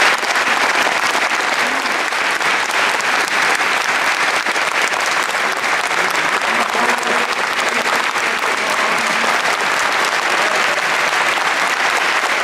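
Audience applauding steadily, dense clapping without a break.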